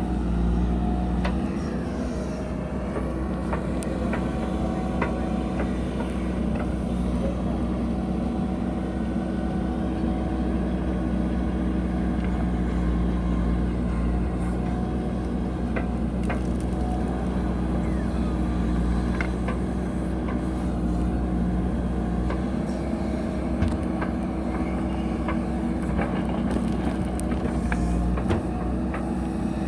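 JCB backhoe loader's diesel engine running steadily at working speed, with a few faint knocks.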